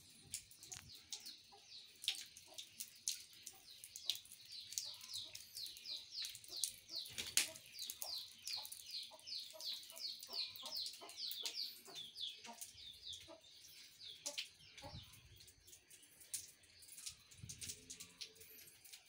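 A rapid series of short, falling chirps, about three a second, runs through the middle for roughly nine seconds. Scattered drips and small splashes of pond water sound throughout.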